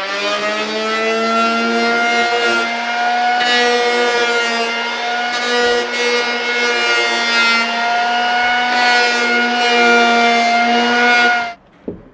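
Electric hand planer running at speed and cutting along the edge of a wooden boat timber, a steady whine that rises as the motor comes up to speed at the start and wavers slightly while it cuts. It stops suddenly near the end, followed by a couple of sharp knocks.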